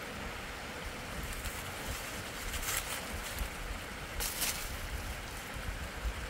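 Steady storm noise of wind and rain, with two brief louder rushes of hiss near the middle.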